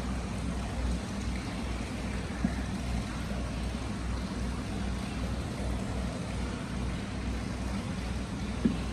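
Hot spring water flowing steadily out of a stone basin and splashing into a tiled bath: a continuous rushing with a pulsing low rumble, and two brief knocks, one about two and a half seconds in and one near the end.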